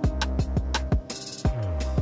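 Background electronic music with a steady kick-drum beat about twice a second over a deep bass.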